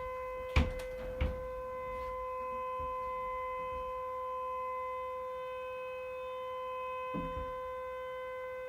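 Tornado siren sound played back from a device, a steady single-pitch wail with a stack of overtones that does not rise or fall. Two sharp thumps about half a second and a second in, and a softer knock near the end.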